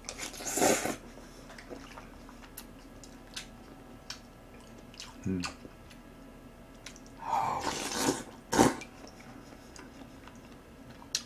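Close-miked eating: chewing and wet mouth sounds, with two louder bursts, one near the start and one about eight seconds in. A sharp click comes just after the second burst, typical of a utensil knocking a bowl.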